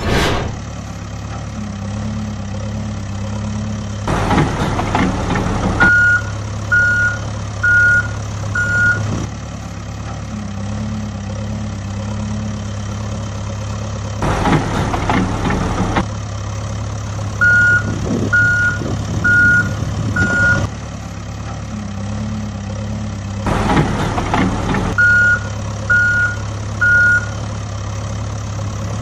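Sound effect of a diesel loader engine running steadily. Three times it breaks into a short burst of rougher noise, and each burst is followed by a reversing alarm beeping about once a second, in runs of four, four and three.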